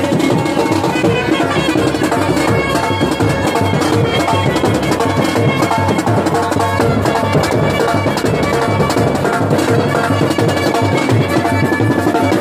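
Indian wedding brass band playing loudly: trumpets hold a sustained melody over steady, driving drum beats.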